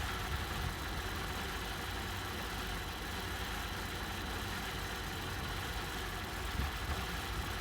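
Holden VE Commodore Omega's 3.6-litre V6 idling rough with an intermittent misfire instead of running steady; the mechanic suspects a spark plug, a coil pack, a vacuum leak or a faulty engine sensor.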